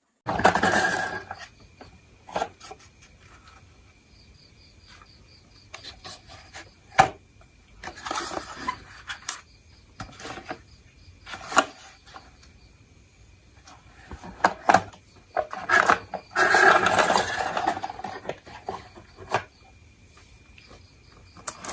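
Small hard toy pieces clicking, knocking and rattling: short bursts near the start and about eight seconds in, single sharp knocks between, and a longer rattling run about two-thirds of the way through.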